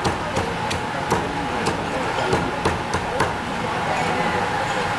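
Cleaver chopping crispy roast pork (siu yuk) on a chopping block: about eight sharp chops come unevenly, roughly two a second, and they thin out over the last second and a half.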